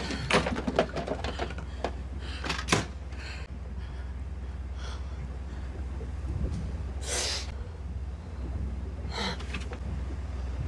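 A run of quick knocks and handling clatters in the first three seconds, then two short breathy gasps, all over a steady low hum.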